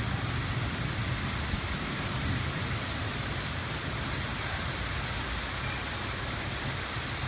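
Heavy rain pouring steadily in a thunderstorm, with a low rumble underneath that is strongest in the first couple of seconds.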